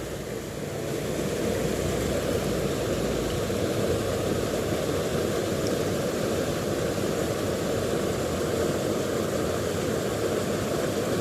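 Steady rush of stream water over rocks, a constant even noise.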